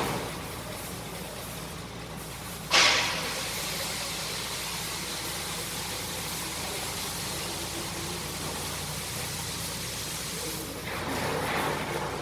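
A steady low machine hum runs throughout. About three seconds in there is a sudden short burst of noise that fades quickly, and a louder noisy stretch comes near the end.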